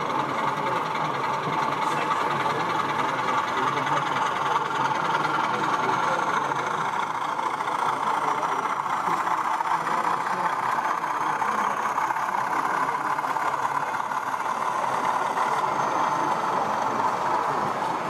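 Model diesel locomotive running slowly along the layout's track, a steady engine-like running sound over the murmur of a busy exhibition hall.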